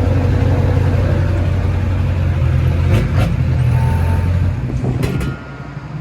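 Flatbed tow truck running with a steady low drone while loading, with a couple of sharp metallic clacks; the drone drops away about five seconds in.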